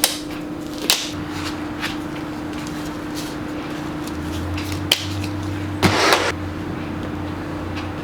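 A few sharp knocks and taps, then a brief rattling clatter about six seconds in, over a steady low electrical hum.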